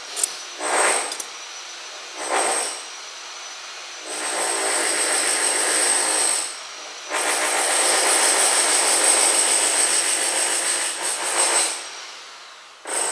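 A few short scissor snips through a cloth repair patch, then long stretches of scratchy rubbing as fingers work the patch into a tear in the leather.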